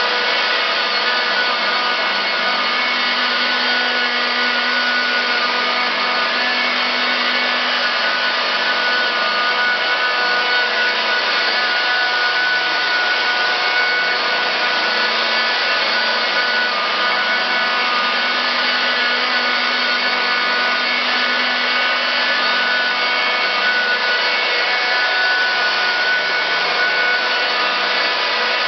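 Small handheld rotary polisher with a 3M cutting pad running steadily against painted bodywork, its pad buffing Menzerna Intensive Polish in the cutting stage of paint correction. It is a continuous whirring motor sound with no pauses.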